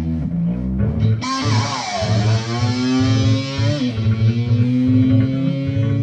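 Rock music: electric guitar playing sliding, bending notes over bass guitar and a pulsing beat, the sound filling out about a second in.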